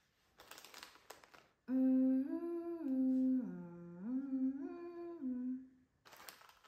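A person humming a short tune with the mouth closed: about four seconds of held notes that step up and down, dipping lower in the middle. A brief soft rustle comes just before it.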